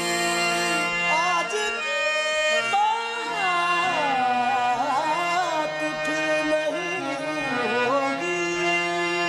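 Qawwali music: a harmonium holding steady notes beneath a wordless singing voice that slides and ornaments the melody.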